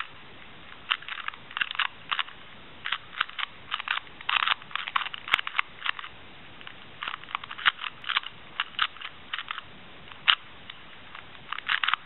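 LanLan 2x2 puzzle cube being turned rapidly by hand: quick runs of sharp plastic clicks as the layers snap through turns, broken by short pauses between move sequences.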